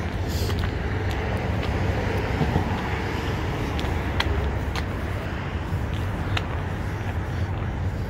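Steady city traffic rumble from the road alongside, with a few scattered sharp clicks.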